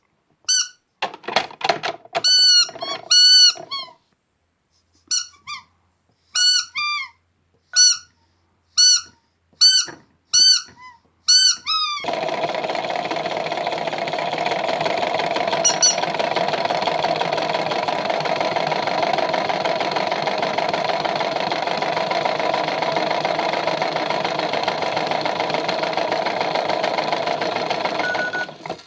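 A string of about a dozen short, high squeaks, each bending down in pitch, like squeezed rubber squeak toys. About twelve seconds in, a toy washing machine's small motor starts and runs with a steady hum, stopping just before the end.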